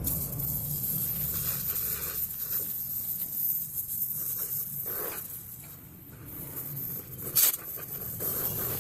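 Oxy-gas welding torch flame hissing steadily, with a brief louder surge of hiss about two-thirds of the way in.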